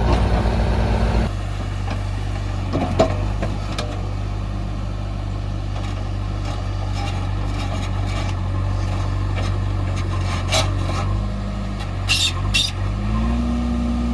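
Backhoe loader's diesel engine running. Its note drops from high revs to a lower steady speed about a second in and climbs again near the end. There is a single knock a few seconds in and a few short metallic clicks near the end.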